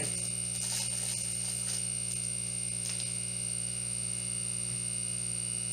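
Steady electrical mains hum with a constant high-pitched whine, and a few faint crinkles as a plastic-wrapped card pack is worked open.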